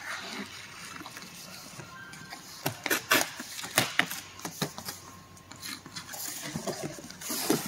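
Packing tape being ripped off a cardboard box and the cardboard flaps pulled open: a series of sharp rips and crackles in the middle, then a longer tearing rustle near the end.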